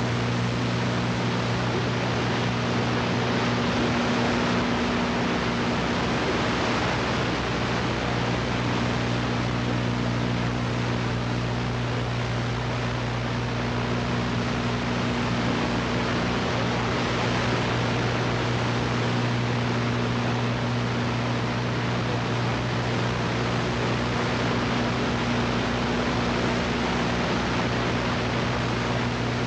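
Steady hiss of VHS tape static with a constant low hum underneath: the empty stretch of tape left where a commercial break was.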